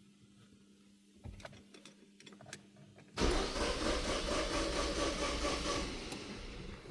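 A few clicks, then a Peugeot engine turning over on its starter motor for about three and a half seconds before it stops.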